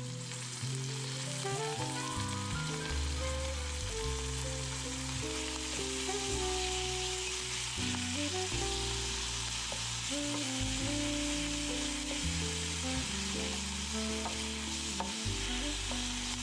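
Blanched broccoli leaves, Chinese cabbage and purslane sizzling as they are sautéed and stirred in a pan, a steady hiss throughout, with background music playing underneath.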